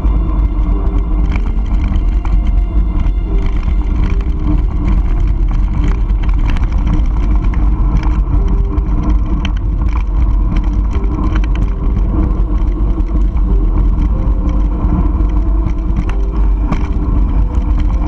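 Mountain bike riding fast on a dirt fire road: heavy wind rumble on the camera microphone, with tyre noise on the gravelly track and a steady scatter of clicks and rattles from the bike.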